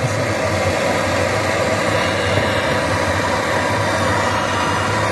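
A steady, loud mechanical whirring noise with a low hum underneath, unchanging throughout.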